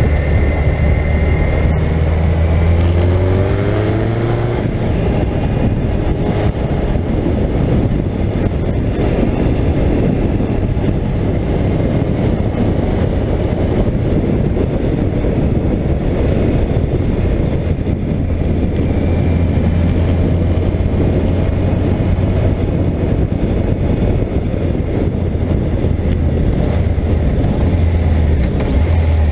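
Suzuki GSX1400's inline-four engine running steadily as the motorcycle rides along at road speed, under heavy wind rush on the microphone. About two seconds in, the engine note rises for a couple of seconds as the bike accelerates.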